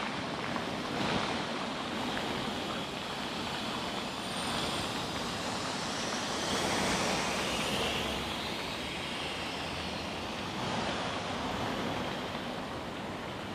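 Fountain water splashing: a steady rushing hiss with slow swells.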